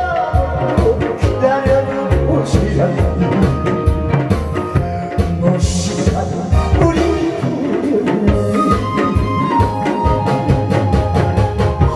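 A trot song played loud over a sound system, with a steady drum-kit beat, a backing melody and a singing voice.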